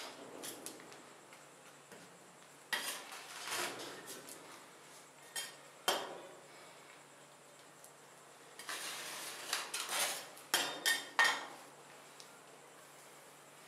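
Steel spatulas scraping across a stainless-steel rolled-ice-cream cold plate in several short strokes, with sharp metal clinks, several of them close together about 10 to 11 seconds in.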